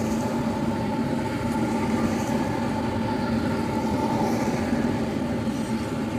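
Steady drone of the burner under a huge wok of frying hotpot chili oil, with faint scrapes of a long ladle stirring the oil.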